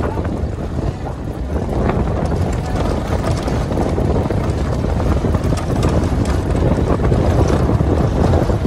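Safari 4x4 driving on a gravel road: a steady rumble of engine and tyres with many small rattles and clicks from the loose surface, and wind buffeting the microphone at the open roof hatch.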